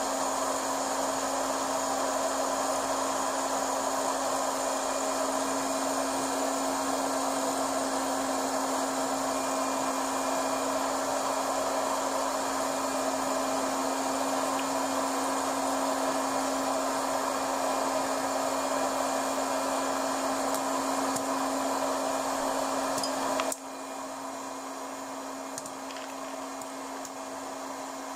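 Łucznik hot-air popcorn maker running with a steady fan hum, heating up before the kernels start to pop. About 23 seconds in, the sound drops suddenly a little quieter and carries on.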